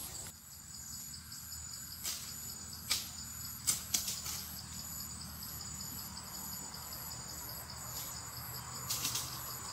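Insects trilling steadily in a high, pulsing chorus, with a few short rustles or clicks about two, three, four and nine seconds in.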